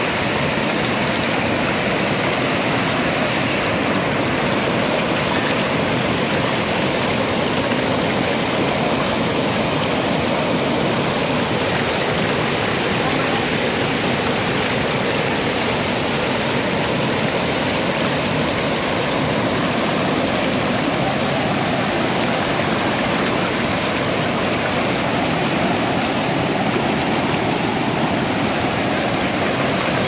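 River in heavy flood rushing through rocky rapids: a steady, loud sound of churning white water.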